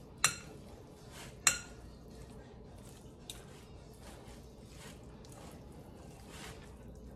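A utensil clinks sharply twice against a glass mixing bowl in the first second and a half, then comes a run of soft scraping strokes as flaked fish salad is stirred.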